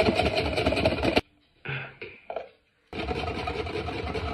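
Wire whisk beating an egg mixture in a glass bowl: rapid, steady clinking and scraping of the wires against the glass. It stops abruptly about a second in and starts again about three seconds in.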